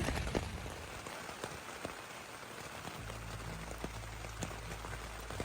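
Steady rain falling, with individual drops ticking here and there. A low steady rumble comes in about three seconds in.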